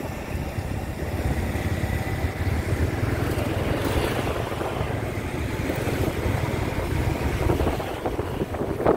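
Moving vehicle: a steady low engine and road drone with wind rushing over the microphone.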